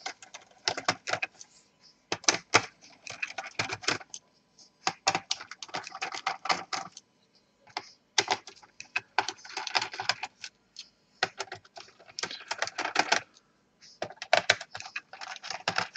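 Irregular clusters of small clicks and taps from a screwdriver working the screws beneath the keyboard of an Acer Aspire 5742 laptop.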